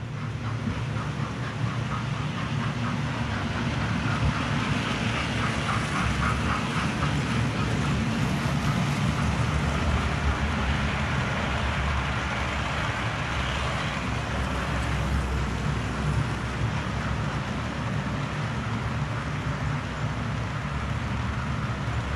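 Model railway trains running past on the layout's track: a steady rumble of the locomotive motors and wheels on the rails, with a fast rhythmic clicking in the first several seconds.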